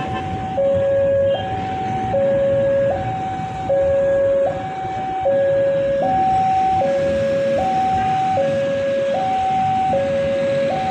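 Railway level-crossing warning alarm sounding a steady two-tone hi-lo signal, the higher and lower tones alternating about every three-quarters of a second, over the rumble of road traffic.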